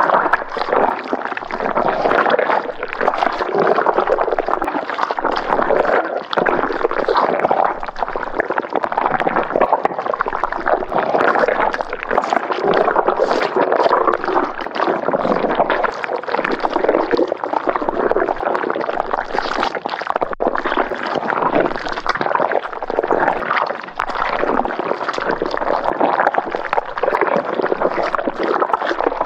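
Thick, viscous liquid bubbling continuously, a dense stream of gurgles and small pops.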